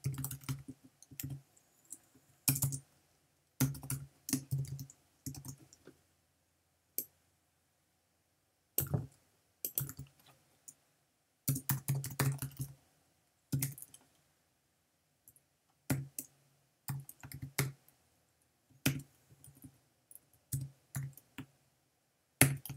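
Typing on a computer keyboard: short runs of keystrokes with pauses of a second or two between them, and one longer pause about a third of the way in.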